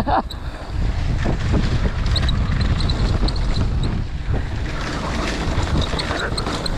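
Wind buffeting the camera microphone on a fast mountain-bike descent down a dirt trail, with the bike rattling and knocking over the rough ground and scattered light high clicks.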